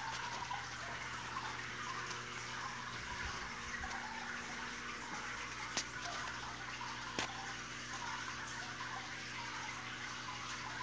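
Water sheeting down the mirror face of a wall fountain and splashing into its pebble-filled basin, a steady trickling splash, with a steady low hum underneath. Two sharp ticks come about a second and a half apart just past the middle.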